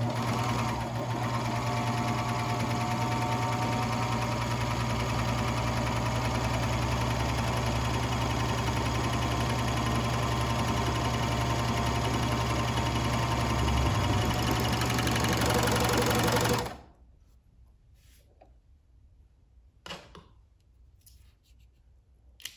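Baby Lock Vibrant serger running steadily as it overlocks a seam through two layers of stretch knit fabric. It stops suddenly about three-quarters of the way through, followed by two faint clicks.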